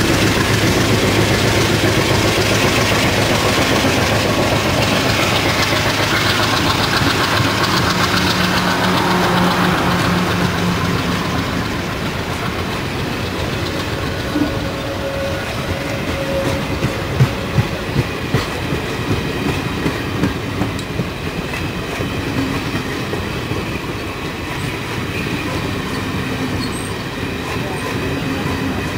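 Passenger train coaches rolling past close by, steel wheels clattering over the rail joints. The noise is loudest for the first ten seconds or so and then eases, with a run of sharp wheel knocks a little after the middle.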